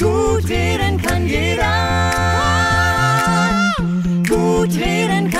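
A cappella outro jingle of the podcast: several voices singing held chords over a low sung bass line, the bass stepping up about three seconds in.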